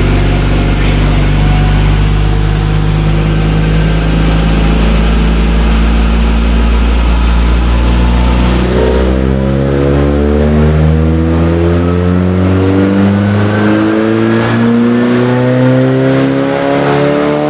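Turbocharged Honda Civic R18 four-cylinder run on a dyno. It holds a steady low engine speed for about eight seconds, then its pitch climbs steadily through a full-throttle pull, with a thin whistle rising above it near the end.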